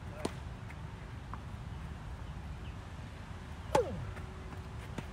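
Tennis racket striking the ball on a flat serve: one sharp, loud pop about four seconds in. A fainter pop comes just after the start, with a few faint ball taps in between.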